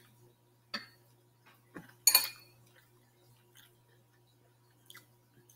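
A metal fork clinking and scraping against a glass plate and glass bowl, a few separate clinks with the loudest about two seconds in.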